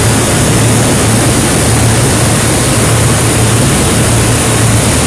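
Steady, loud industrial machinery din in a steel fabrication shop: a constant low hum under an even rushing noise, with no distinct knocks or changes.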